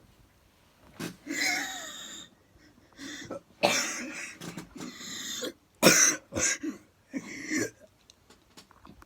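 A person's short, breathy vocal outbursts, several in a row, loudest about six seconds in.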